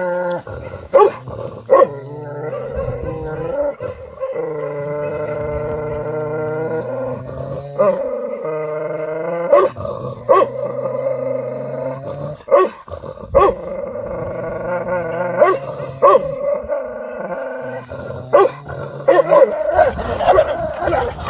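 Two Jindo dogs growling and giving long drawn-out yowls at each other, broken every second or two by short sharp barks or snaps. The sound grows more jumbled near the end.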